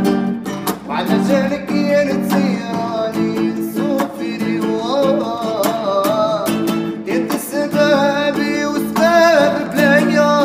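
A man singing a slow, wavering melody while strumming an acoustic guitar with steady chords.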